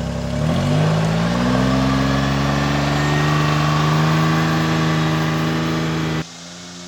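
Utility vehicle (Gator) engine running, revving up about half a second in and holding at a steady higher speed as it pulls away. Near the end it cuts off abruptly to a quieter, steady hum.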